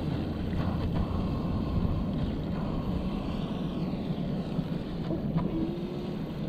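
Electric radio-controlled boat running across shallow water, its motor a faint whine that falls in pitch about halfway through, over a steady low rushing noise. The boat is held below full speed by battery and speed-controller trouble.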